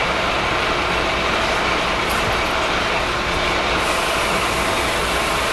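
Hydraulic power unit of an MW 808II motor-wrecking machine running steadily, its electric motor driving the hydraulic pump: an even, unbroken machine noise with faint steady tones.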